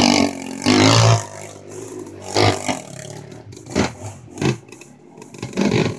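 Sport quad ATV engines revving in short bursts. The longest, loudest rev comes in the first second, followed by a string of shorter blips and knocks about a second apart.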